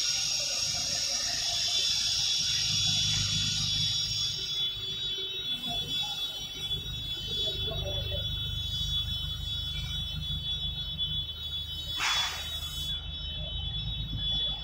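Gas cutting torch cutting a steel pipe: a steady hiss with a high-pitched whistle of several close tones over a low rumble. There is a short, louder hiss about twelve seconds in.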